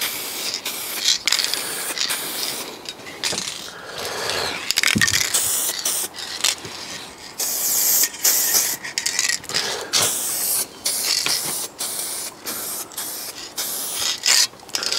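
Aerosol spray can of direct-gloss car paint hissing in short bursts with brief breaks between them, as panel edges are sprayed. The can is nearly empty.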